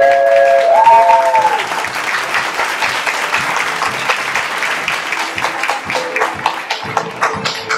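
Audience applauding, a dense wash of clapping that thins toward the end. A last held note of music ends with a downward slide about a second and a half in.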